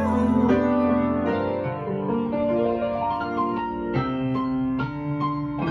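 Piano music: a keyboard plays a melody over sustained chords, its notes struck one after another.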